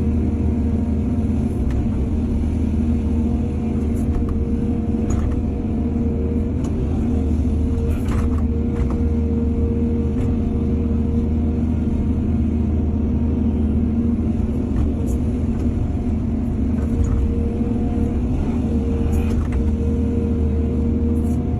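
Heavy diesel engine of an excavator running steadily, with a deep even drone and a few faint knocks now and then.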